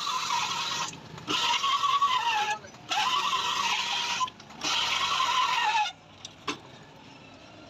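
Cylinder-bore polishing (honing) machine running in four short bursts of about a second each. The tool scrapes inside a Honda CG125 cylinder with a whine that drops in pitch as each run winds down. Two light clicks follow.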